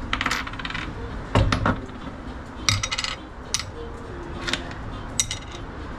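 Irregular metallic clinking and jingling in short clusters, with a heavier knock about one and a half seconds in.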